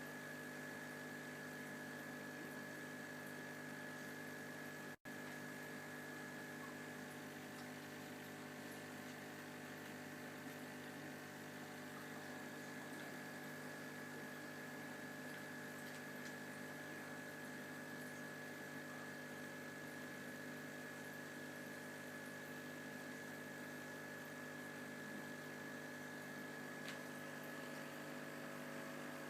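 Steady electrical hum made of several low tones, with a thin high whine above them. It cuts out for an instant about five seconds in.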